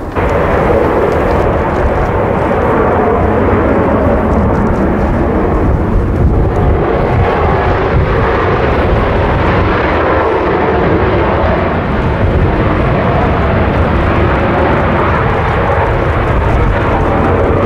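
Loud, steady jet noise from F/A-18D Hornet fighters' twin turbofan engines, with afterburners lit as a jet climbs away.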